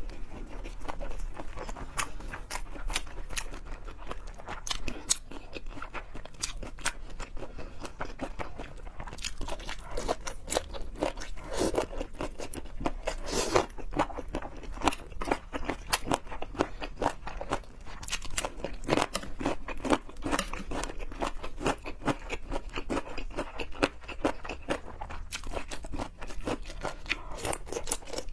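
Close-miked eating: crunching and chewing, a dense run of crisp clicks and crackles.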